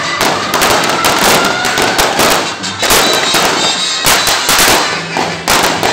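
Firecrackers popping in rapid, irregular bursts of sharp cracks, with music playing underneath.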